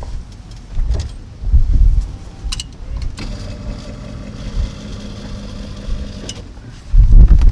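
An electric power car seat's motor runs for about three seconds in the middle, a steady hum, among knocks and thumps from a person shifting his weight in the seat.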